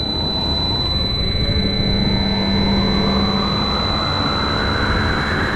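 Giant blender's rotor spinning up: a whine and a rushing whoosh that climb steadily in pitch as the blades gain speed, with a steady high-pitched tone above it.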